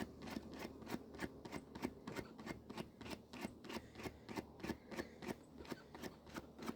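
Rapid, even scraping strokes, about five a second: a rubber bicycle inner tube being scuffed around the puncture with a patch kit's scuffer so the patch glue will bond.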